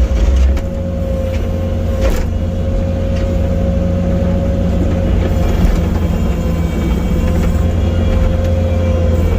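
Bobcat T870 skid steer's diesel engine running steadily under load, with a heavy low rumble and a steady whine over it, and a single knock about two seconds in.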